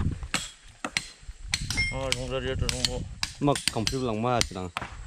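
Irregular sharp knocks and clicks, like hand tools striking during manual work, with a person's voice in between.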